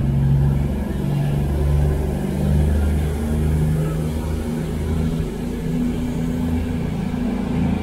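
CrossCountry Voyager diesel-electric multiple unit pulling out of the platform, its underfloor diesel engines running under power with a steady low drone.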